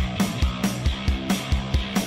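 Rock music with a steady, fast drum beat.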